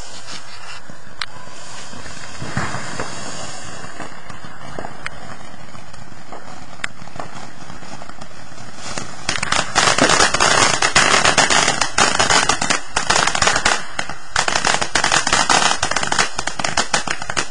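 Ground fountain firework hissing steadily as it sprays sparks, with scattered pops. About nine seconds in it breaks into loud, dense, rapid crackling that keeps going, with a short lull partway through.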